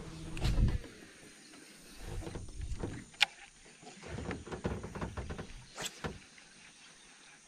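Fishing reel being wound in during the fight with a traíra that has just struck, in uneven spells of whirring and rumbling with scattered clicks and knocks of tackle; a sharp click about three seconds in is the loudest sound.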